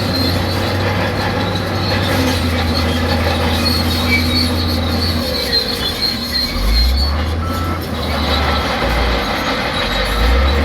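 Crawler bulldozer's diesel engine running under load, with the high-pitched squeal of its steel tracks. The engine note changes about halfway through.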